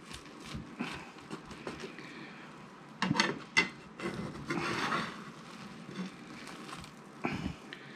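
Metal fork scraping and clicking against a frying pan as a cooked omelette is loosened from it, with a few sharp clicks about three seconds in and a longer scrape near the middle.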